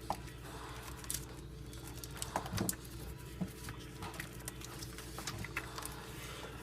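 Scattered light clicks and knocks, a few close together about two and a half seconds in, from parts being handled in a car's engine bay, over a faint steady hum.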